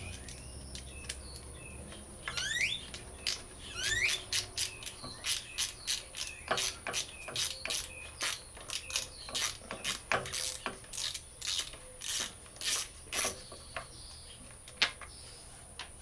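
Hand ratchet wrench clicking as it turns a bolt on a generator's alternator end cover: a run of sharp clicks, about two to three a second, after two short rising squeaks about two and four seconds in.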